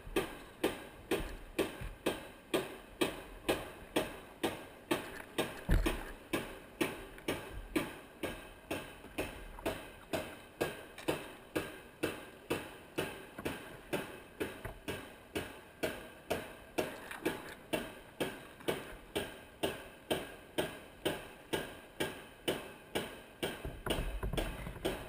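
Kayak being paddled: a steady, even train of sharp clicks, about two a second, in the rhythm of paddle strokes, with a single low bump about six seconds in.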